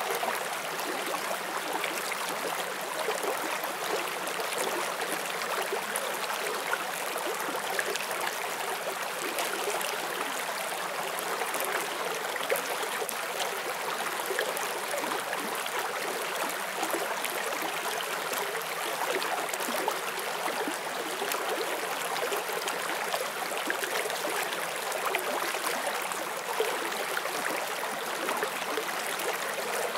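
Forest stream flowing over rocks: a steady rushing babble with small splashes and trickles.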